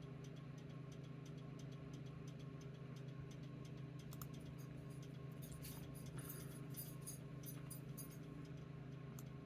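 Faint steady low hum, with a run of light, quick clicks in the second half.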